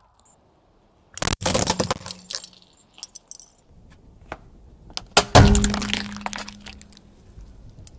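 A car tyre crushing things: a burst of crunching about a second in, then a small plastic slime barrel cracking with a sharp loud snap about five seconds in, followed by crackling as it breaks apart under the tyre.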